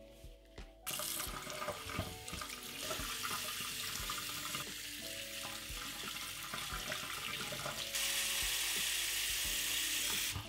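Kitchen tap running into a stainless steel sink while hands rub and rinse bay bolete mushrooms under the stream. About eight seconds in, the sound turns louder and steadier as the stream pours into a pot full of mushrooms.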